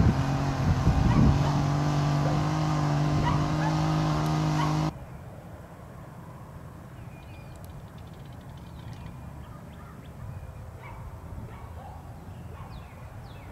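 A motor engine running steadily with a constant pitched drone. It stops abruptly about five seconds in. After that, a quieter outdoor background with small birds chirping.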